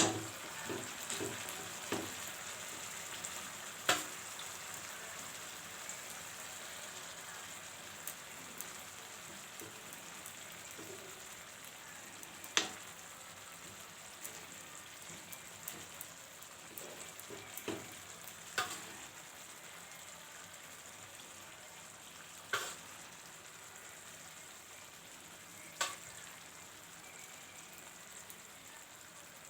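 Thinly sliced potatoes shallow-frying in a little oil on a tawa: a steady sizzle that slowly grows quieter, with a few sharp clicks scattered through it.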